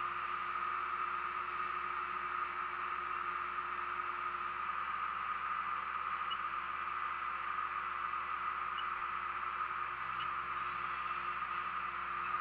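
Bobcat skid-steer loader's engine and hydraulics running steadily under the operator, an even, unchanging drone with a hiss.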